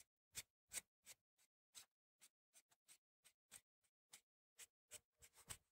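Faint strokes of a small knife cutting into a grape-vine scion: a run of short separate cuts, about three a second, coming closer together near the end.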